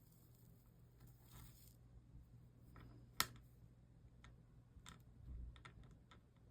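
Quiet workbench sounds: one sharp click about three seconds in, then a few lighter clicks and taps, over a low steady hum.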